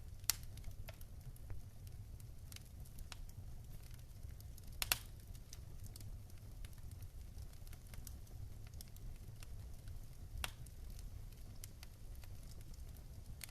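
Wood fire in a fire pit crackling, with scattered sharp pops over a low steady rumble. The loudest pops come about a third of a second in and near five seconds in.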